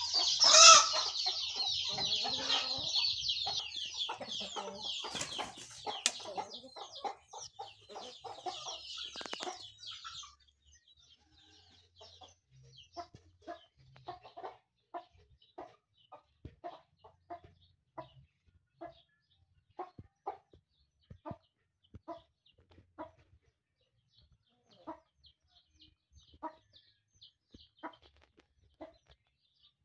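Domestic chickens clucking: short, separate clucks about once or twice a second. For the first ten seconds a dense, high-pitched chatter lies over them, loudest right at the start.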